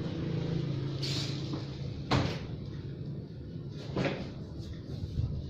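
Cardboard bike box and packaging being handled: a short rustle about a second in, a sharp knock about two seconds in and a softer one about four seconds in, over a low steady hum.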